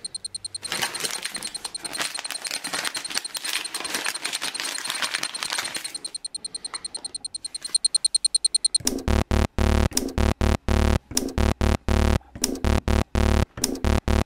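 Synthesized electronic sound effects: a dense crackling noise for about six seconds, then a fast run of rapidly pulsing electronic beeping tones.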